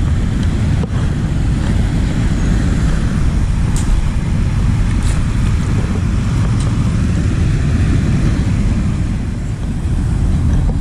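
Wind buffeting the microphone, a steady low rumble, with a few light clicks over it.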